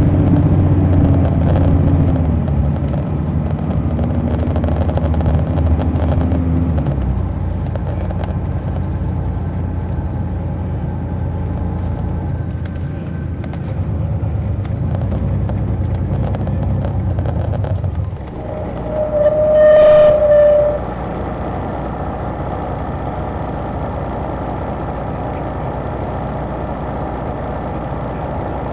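Detroit Diesel Series 60 diesel engine of an MCI D4000 coach, heard from the rear of the bus, its note falling in steps over the first several seconds as the bus slows, then running steadily. About eighteen seconds in the sound dips, a vehicle horn sounds once for about a second and a half, and the engine then runs on at a lower, steady level.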